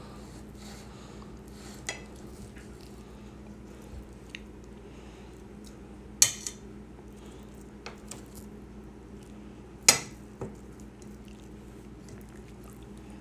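Metal cutlery clinking and scraping against a dinner plate as steak is cut and picked up. There are a few light taps and two sharp clinks, about six and ten seconds in.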